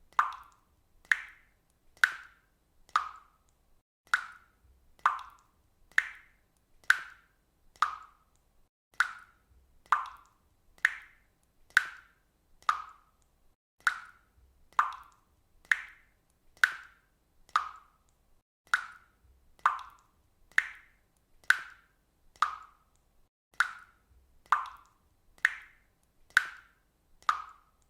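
Water dripping steadily into water, one plop about every second at a nearly even pace.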